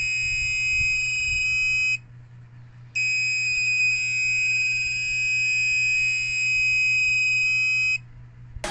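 An Arduino-driven electronic buzzer playing a programmed sequence of tones that steps through different pitches in a high, shrill beep. It stops for about a second about two seconds in, then starts the sequence again and stops near the end.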